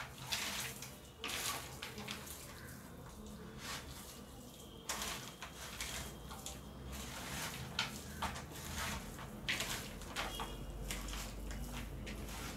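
A hand squishing and mixing marinated chicken pieces with fried onions in a plastic bowl: soft, irregular wet squelches.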